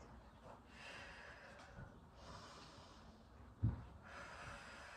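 A woman breathing audibly in time with seated exercise, about three slow breaths in and out, paced with the effort of the movement. A single low thump comes about two-thirds of the way through.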